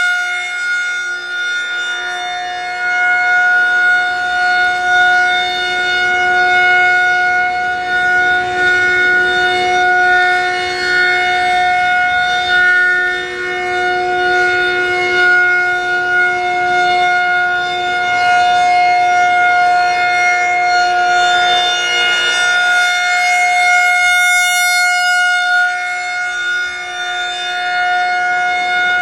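Federal Signal 2001-130 rotating electromechanical outdoor warning siren sounding one steady, loud tone during its monthly test, its level swelling and dipping slightly as the horn turns.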